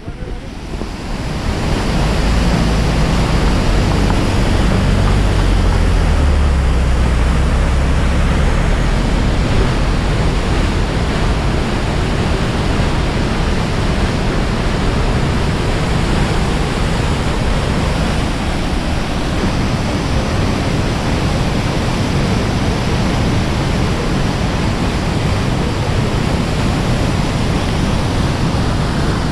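Steady roar of a swollen river's rapids rushing over rocks, with a heavier low rumble for the first several seconds.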